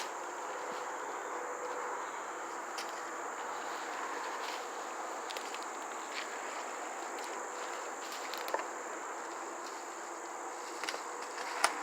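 Outdoor background: a steady, high-pitched insect drone over an even low hiss, with a few faint clicks and a sharp tick near the end.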